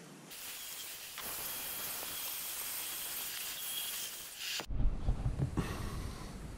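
Handheld electric rotary tool grinding into a fiberglass panel: a steady high-speed whine with hiss for about four seconds that cuts off suddenly. It is followed by low thumps and handling noise.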